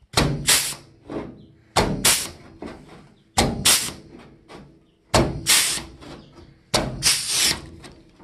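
Air-powered flanging (joggle) tool pressing a recessed step into the edge of a steel quarter panel: five strokes about a second and a half apart, each a short burst of clacking and air hiss.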